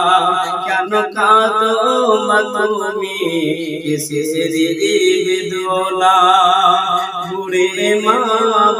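A man singing a Bengali Islamic gojol (devotional song) solo, in long wavering melodic lines, over a steady low tone.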